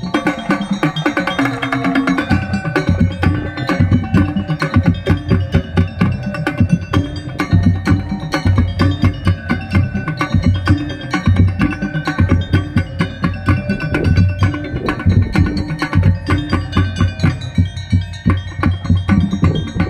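Non-brass marching drum band playing a piece: drums beating a steady rhythm with pitched mallet percussion carrying tones above them.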